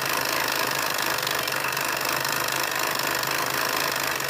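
Singer sewing machine running steadily at speed, stitching through fabric.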